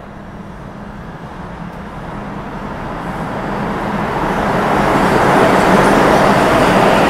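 New York City Subway IRT train coming in on the far track of an underground station. Its rumble and wheel noise grow steadily louder for about five seconds, then hold loud as the cars run past.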